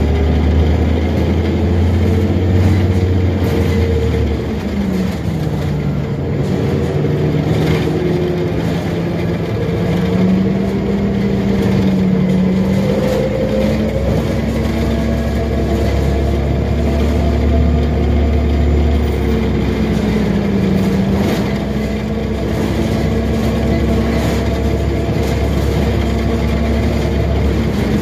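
Onboard sound of a 2006 Orion VII first-generation hybrid transit bus in service. A steady low hum runs for about four seconds, then the drivetrain's pitch rises and falls repeatedly as the bus moves, with light rattles.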